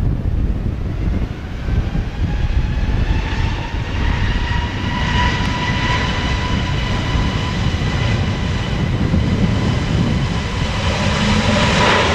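Airbus A320neo-family airliner's turbofan engines spooling up to takeoff power for the takeoff roll: a deep rumble under a whine of several tones that climbs in pitch over the first few seconds and then holds, growing a little louder near the end.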